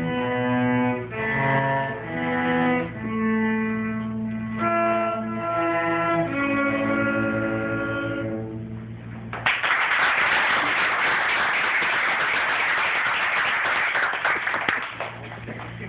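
Two cellos playing a duet in held, bowed notes that end about nine seconds in; then audience applause starts suddenly and fades near the end.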